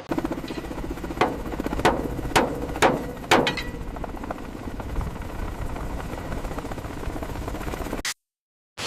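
Helicopter running with a steady, rapidly pulsing drone. Five sharp knocks land about half a second apart in the first few seconds. The sound cuts off abruptly near the end.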